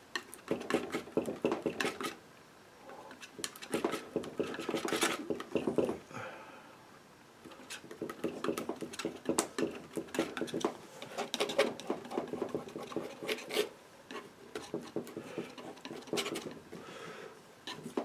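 Metal palette knife scraping, tapping and clicking against a palette as thick oil paint is mixed, in repeated bursts with short pauses.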